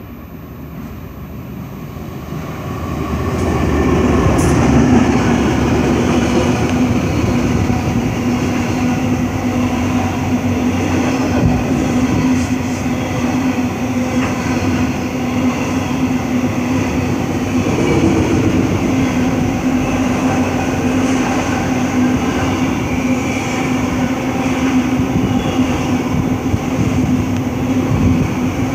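Aurizon 2824 diesel locomotive hauling a freight container train, approaching and passing close by. The sound swells over the first few seconds. It then settles into the steady rumble and hum of the container wagons rolling past.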